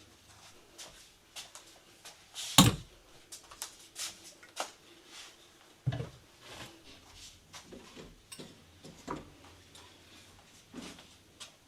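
Household handling sounds: scattered small clicks and knocks, with a loud sharp thump about two and a half seconds in and a heavier knock near six seconds.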